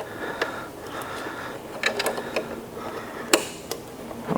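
Phillips screws being backed out of the plastic-and-metal housing of a car infotainment unit with a screwdriver: a light steady mechanical whir with a few sharp clicks as the driver bit and screws turn.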